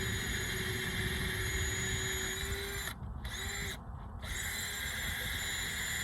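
Wire wheel on a power tool scrubbing corrosion and buildup off steel suspension parts: a steady motor whine under a loud rasping hiss, which drops out briefly twice, about three and four seconds in, as the wheel comes off the metal.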